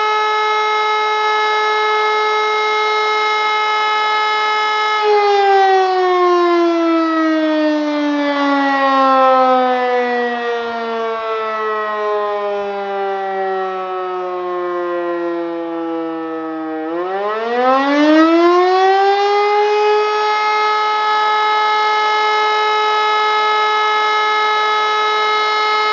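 E57 electromechanical siren sounding the German 'Feueralarm' signal. A steady tone falls slowly in pitch for about twelve seconds as the rotor winds down during the pause between tones, then spins back up within about three seconds to full pitch and holds for the next tone.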